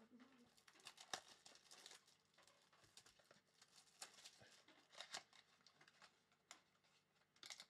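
Faint crinkling and tearing of clear plastic shrink wrap being peeled off a trading card box, in scattered short rustles and crackles.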